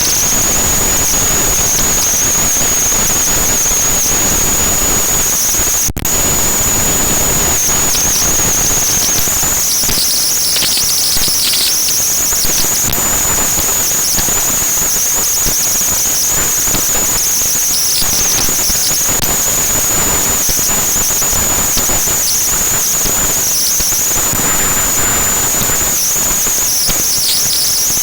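Strong wind buffeting the microphone: loud, rough, fluttering noise, with a steady high-pitched whine running over it.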